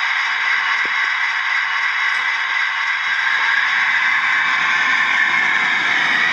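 An OO gauge model train running on the layout out of view: a steady hiss with a low rumble building from about halfway through as it comes nearer.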